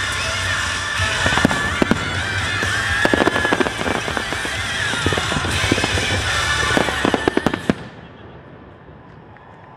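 Fireworks going off in quick bangs and crackles over loud show music, with a dense flurry of bangs near the end. About eight seconds in the sound drops suddenly and turns quiet and muffled.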